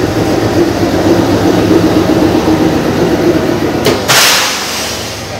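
Narrow-gauge toy train's engine running steadily at the station platform, a low rumble with a steady hum. About four seconds in, a loud hiss cuts in for about a second and then fades.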